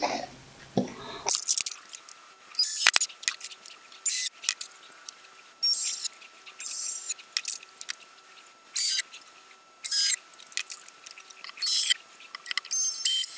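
Cordless drill/driver running in short whirring bursts about every second or two, driving #6 ¾-inch screws through a particle-board spoilboard into 3D-printed plastic feet.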